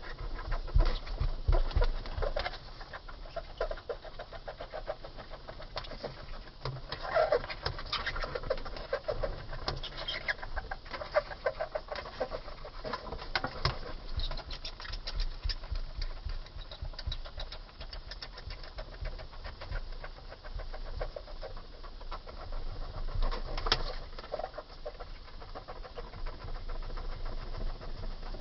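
Death's-head hawkmoth (Acherontia atropos) fluttering its wings in short irregular bouts, with rustling and clicking and a few short pitched calls.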